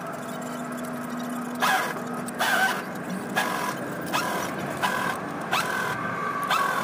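Spanner clinking on the steel fuel-line nuts of a diesel injection pump: a series of short, sharp metallic clinks, roughly one a second, over a steady low hum.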